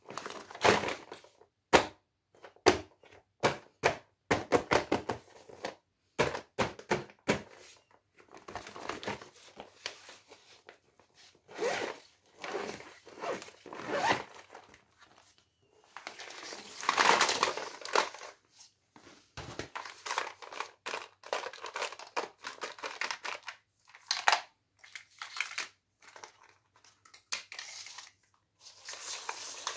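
Clear vinyl toy bag being handled and opened by hand, with crinkling and rustling plastic. A quick run of sharp clicks and taps comes in the first several seconds, then stretches of crinkling broken by short pauses.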